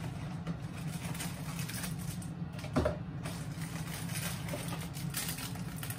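Food-preparation handling at a kitchen counter: faint scrapes and light clatter, with one knock about three seconds in, over a steady low mechanical hum.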